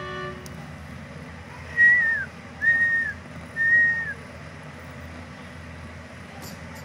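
Newborn kittens giving three short, high-pitched mews about a second apart, each dropping in pitch at its end, over a steady low hum.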